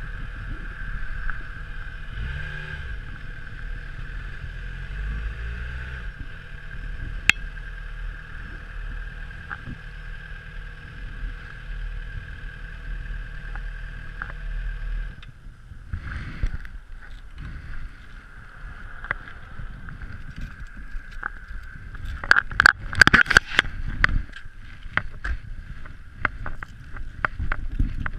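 Yamaha FZ6R's inline-four engine running steadily, then switched off abruptly about halfway through. After it stops, a scatter of clicks and knocks, with a loud cluster of them about four-fifths in.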